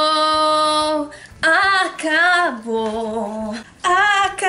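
A woman singing solo, unaccompanied, in a theatrical belting style: a long held note with vibrato ends about a second in, then after a short pause come further sung phrases, one of them a low held note.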